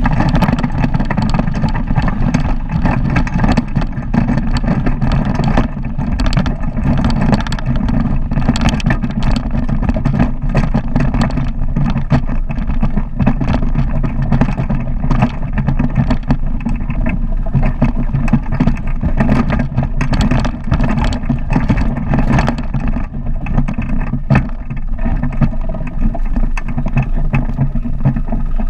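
Ultralight trike's rear-mounted pusher engine and two-blade propeller running loud and steady as the trike taxis over grass, with frequent short crackles over the engine note.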